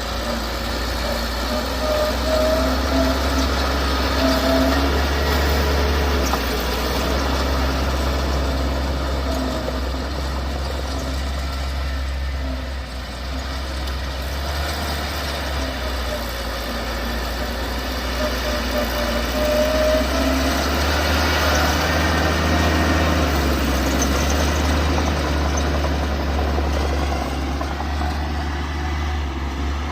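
Bulldozer's diesel engine running steadily with a deep drone, its pitch rising and falling slightly as it works.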